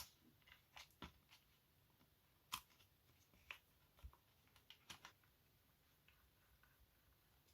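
Faint, scattered light clicks and taps, about seven in all, from a plastic wireless-charger base and a small screwdriver being handled as the base's four screws are taken out.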